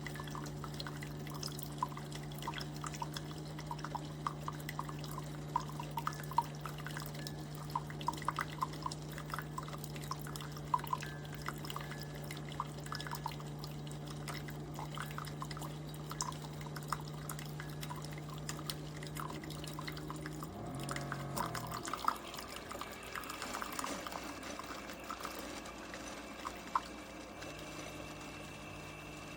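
Keurig K-Supreme pod coffee maker brewing: a steady pump hum with coffee dripping into the cup. About two-thirds of the way through, the hum steps down and stops. A few seconds of hissing follow, with scattered drips.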